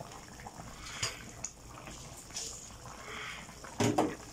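Vegetable broth simmering and bubbling in a wide metal pan, with a metal ladle stirring in it. Two sharp knocks of the ladle against the pan near the end are the loudest sounds.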